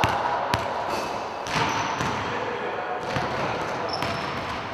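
Basketballs bouncing on a gym's wooden court, a few sharp separate bounces ringing in the hall over a steady background of voices and movement.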